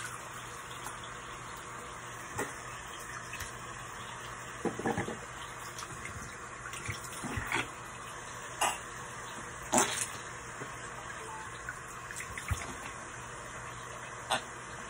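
Tap water running steadily into a bathroom sink, with a few short knocks and splashes during toothbrushing at the basin.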